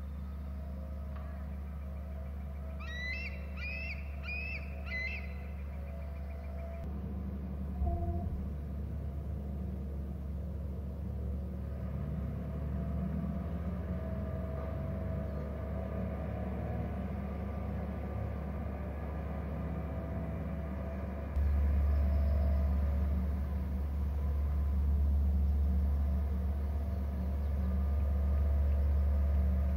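Steady low rumble with a constant hum underneath. About three seconds in a bird gives four short, high chirps in quick succession. There is a brief thump near eight seconds, and the rumble gets louder about two-thirds of the way through.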